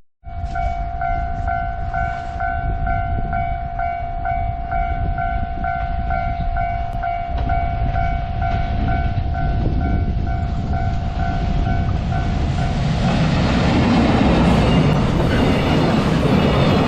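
Level crossing alarm ringing in a steady repeating pattern. From about twelve seconds in, the rumble and wheel noise of an approaching EF210-hauled freight train builds and drowns out the alarm.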